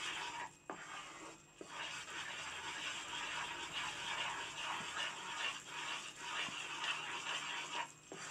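Mysore pak batter of gram flour, sugar syrup and hot oil sizzling and bubbling in a kadai while a wooden spatula stirs and scrapes through it, with a couple of short lulls early on and near the end.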